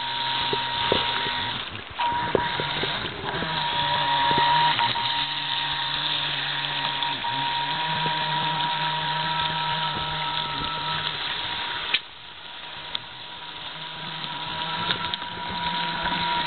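RC jet-drive boat's 550 brushed electric motor running under throttle, a steady high whine over a hiss, its pitch stepping up in the first few seconds. The sound drops sharply about twelve seconds in, then builds back up.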